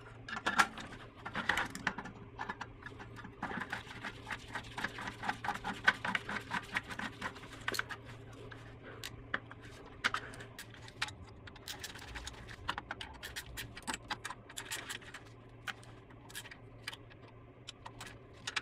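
Irregular small clicks, taps and scrapes of fiddly hand work: a variable frequency drive being fitted onto bolts inside a milling machine's steel cabinet, then a screwdriver at its terminals. A faint steady low hum runs underneath.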